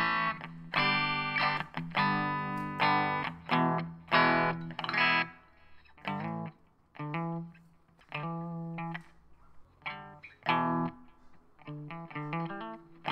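Outro music: plucked chords and single notes that ring and fade away, played in uneven phrases with short pauses between them.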